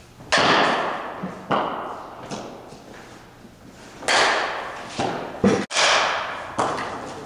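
Softball bat hitting soft-tossed balls, a series of sharp hits a second or more apart, each trailing off in an echo of a large indoor batting facility.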